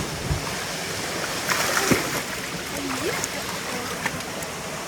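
Steady rush of a waterfall pouring into its pool, with a brief louder splash about a second and a half in.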